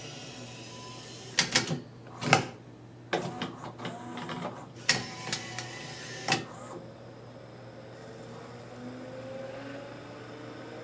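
Laserdisc player's laser carriage flipping from side A to side B, driven through gearing by the same motor that moves it back and forth: a run of sharp mechanical clicks and clacks over several seconds. About two-thirds of the way in, this gives way to a quieter steady motor whir. The side change completes successfully.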